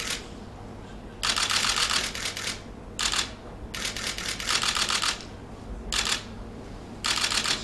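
Camera shutters firing in rapid bursts, about five runs of fast clicks, the longest lasting over a second.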